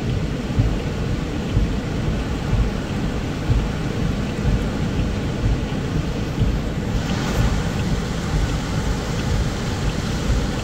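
Heavy rain pounding on a car's roof and windshield, heard from inside the cabin: a steady, dense rush that turns hissier about seven seconds in.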